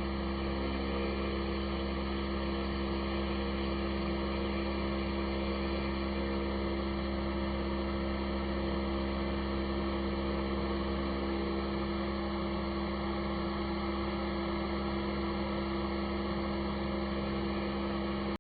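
CNC router spindle running steadily with a surfacing bit, flattening a hardwood maple board: an even hum with a low drone, unchanged throughout.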